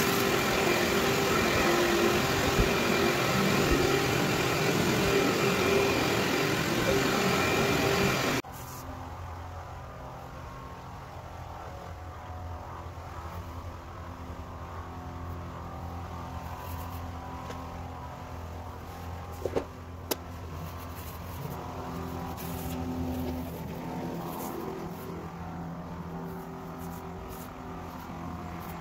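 Loud steady machine noise that cuts off abruptly about eight seconds in. A much quieter low steady hum follows, with a few sharp clicks, while carpet pre-spray goes down from an electric tank sprayer.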